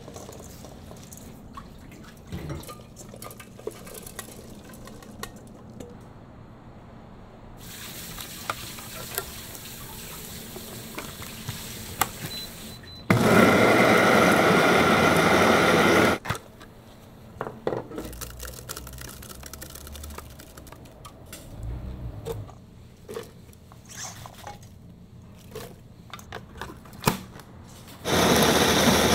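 Kitchen clatter of dishes and utensils. Twice, a loud rush of water runs from a tap for about three seconds and cuts off suddenly; the second begins near the end.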